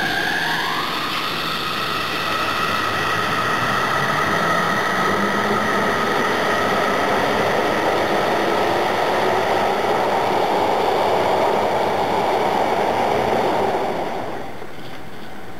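Yokohama Municipal Subway Green Line linear-motor train pulling out of the station. Its motor whine rises in pitch as it starts off and then holds steady, while the rolling noise of the passing cars builds. The sound drops away sharply about fourteen seconds in.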